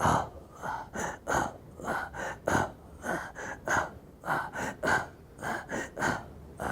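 A man breathing rhythmically in short, forceful, gasping breaths, about three a second, a heartbeat-like breathing demonstration.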